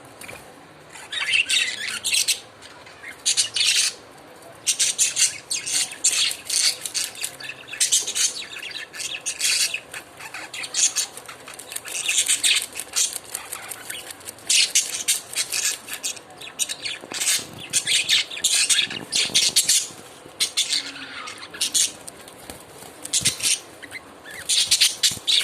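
Lovebirds chattering in rapid bursts of shrill, high-pitched chirps and squawks, with short pauses between bursts.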